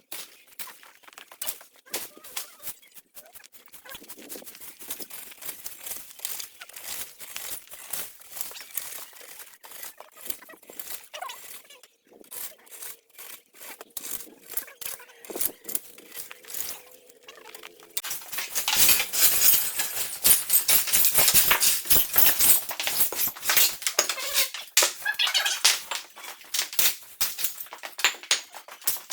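Irregular scraping, rustling and clicking of hands-on cleanup work, growing much louder and denser about two-thirds of the way in.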